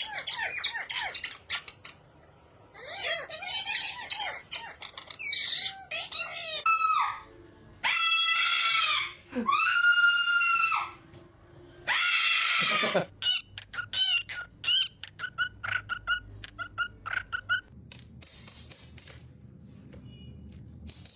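Parrot screeching and squawking. There are a few warbling calls at first, then three long, loud, high screeches about eight, ten and twelve seconds in. After that comes a quick run of short repeated squawks that fades away.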